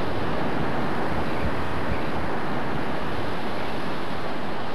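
Steady noise of wind and breaking surf, with wind buffeting the microphone in low thumps.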